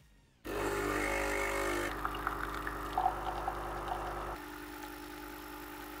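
Nespresso CitiZ & Milk coffee machine's pump starting suddenly about half a second in and buzzing steadily as it pushes water through the capsule and espresso pours into the cup. The sound drops a step in level about two seconds in and again a little past four seconds.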